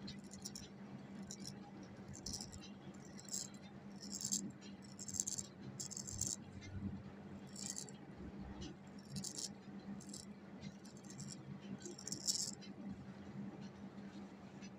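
Straight razor scraping through underarm hair in short, irregular strokes, each a faint dry scratch coming every half second to a second, over a low steady hum.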